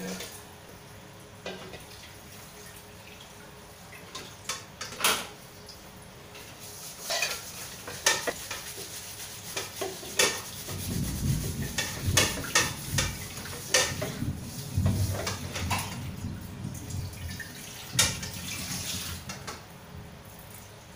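Metal kitchenware clattering: an aluminium lid knocks onto a wok, then come scattered sharp clinks. About halfway through, the lid comes off and metal tongs toss noodles in the wok, giving several seconds of denser clinking and scraping against the pan.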